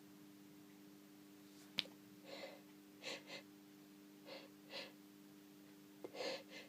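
A person with a cold taking a series of faint, short gasping breaths in the build-up to a sneeze, with a small click about two seconds in. A steady faint hum lies underneath.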